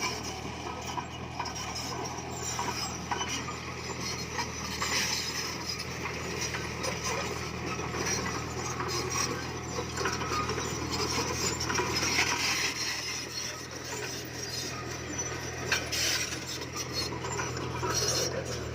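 Komatsu D20P bulldozer's diesel engine running steadily, under continuous irregular clinking and clattering of its steel tracks and the stone it is pushing.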